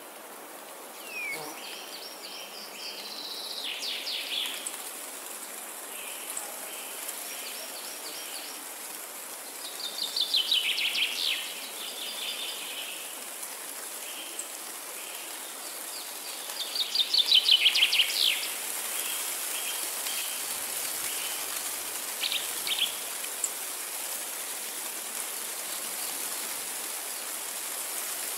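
Wind moving through forest trees as a steady rushing, with songbirds singing over it: three loud, fast trilled song phrases spaced several seconds apart, the last the loudest, and short high chirps repeating between them.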